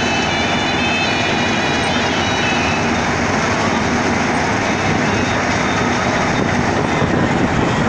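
Rice harvesting machine running steadily with a loud, dense mechanical noise. A high whine sits over it at the start and fades out after about three seconds.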